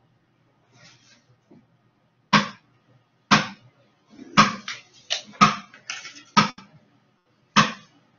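An electric fan whose neck has broken, knocking and clattering: about ten short, loud, irregular knocks, starting about two seconds in.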